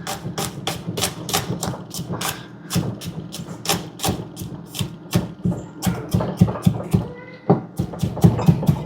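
Kitchen knife chopping on a cutting board in quick, even strokes, about four or five a second.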